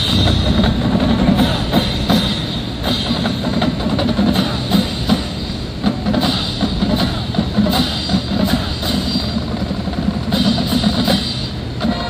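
Marching band drumline playing a cadence on snare drums and bass drums, starting abruptly right at the start.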